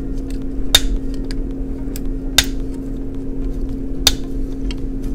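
Sharp plastic clicks, three of them spaced about a second and a half or more apart, as a Blythe doll's eye mechanism is worked by hand; the mechanism is sticking and its T-bar is not turning over. A steady low hum runs underneath.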